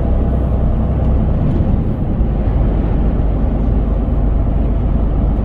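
Truck's diesel engine and tyre noise while driving, a steady low rumble with no breaks.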